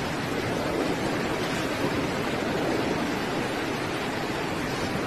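Steady hiss of heavy rain falling on floodwater, with no breaks or distinct events.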